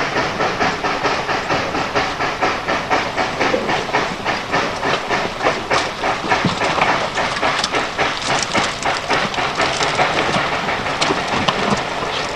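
Fowler steam ploughing engine working, its exhaust chuffing in a rapid, even rhythm with a steady hiss of steam.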